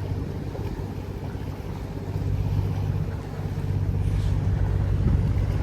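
A boat's engine running steadily, a low hum.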